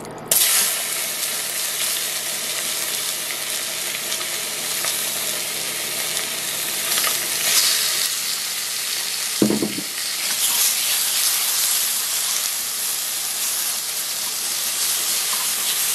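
Thin slices of marinated pork hitting hot oil in a wok: the sizzle starts abruptly as the meat goes in and keeps frying steadily while the slices are spread with chopsticks. A single short knock is heard about nine and a half seconds in.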